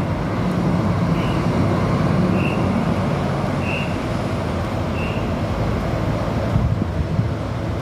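A bird repeating a short, high whistle note about once every second and a quarter, like a police or referee's whistle, over steady city traffic rumble.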